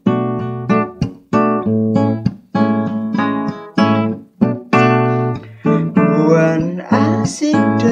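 Acoustic guitar playing chords in an instrumental passage of an acoustic folk-pop song, each chord struck and left to ring. Near the end a singing voice starts to come in over the guitar.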